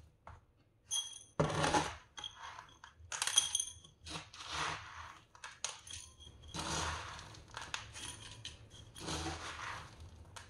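Coarse masa (decomposed granite) gravel rattling and clinking as it is scooped and shifted by hand in a plastic pot, in a run of short scratchy bursts with a few ringing clinks near the start.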